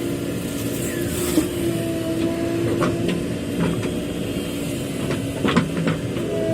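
JCB backhoe loader's diesel engine running steadily with a steady hum, with a few sharp metallic clanks, the strongest about five and a half seconds in.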